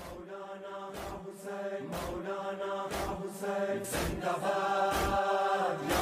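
Noha, a Shia lament, chanted by voices in long held notes over a sharp beat about once a second. It grows steadily louder.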